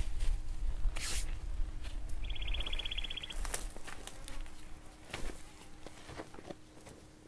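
Hand scraping and crunching coarse gravel and dirt, with scattered scuffs and clicks over a low rumble that dies away about halfway through. About two seconds in, an insect gives a rapid buzzing trill for roughly a second.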